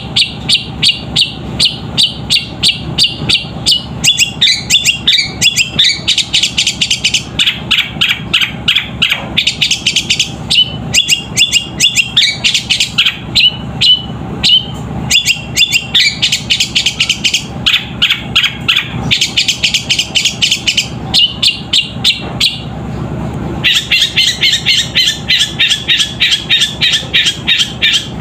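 Long-tailed shrike (cendet) singing a rapid, continuous chatter of sharp chirps, mimicking the squabbling calls of fighting tree sparrows, with a pause of about a second late on. A low steady hum lies underneath.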